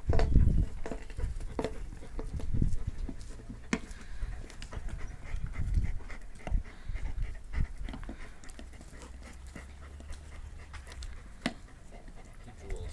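A dog panting hard while it bites and gnaws at an old rubber car tire, with scattered small clicks and knocks. A low thump-like rumble comes at the very start.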